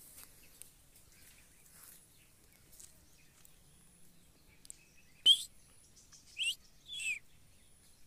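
Ring-necked parakeet giving three short, shrill calls about a second apart, starting some five seconds in. The first is the loudest and the last falls in pitch.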